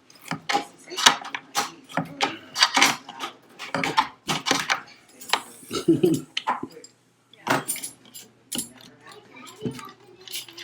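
Repeated sharp clinks and clatters of small hard objects being handled, many in quick succession with short gaps.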